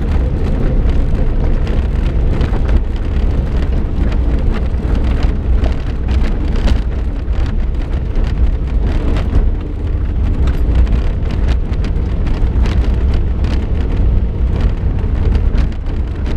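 Suzuki Jimny driving up a gravel track, heard from inside the cab: a steady low engine and road rumble, with loose stones crackling and popping under the tyres throughout.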